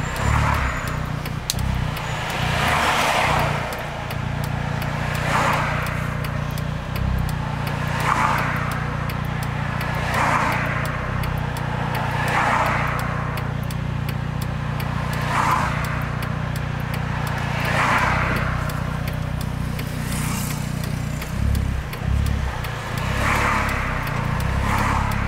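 Cars passing close by one after another, each a brief swell of tyre and engine noise, about one every two to three seconds, over a steady low engine hum inside a stopped car.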